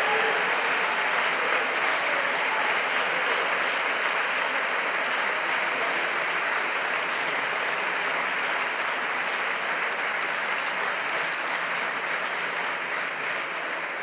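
Applause from many people clapping together, a steady dense patter that dies away near the end.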